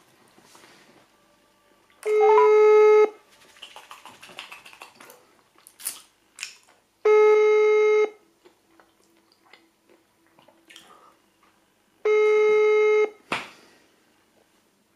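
Telephone ringback tone from a smartphone's loudspeaker while an outgoing call rings out unanswered: three steady one-second beeps about five seconds apart, the German ringing-tone cadence.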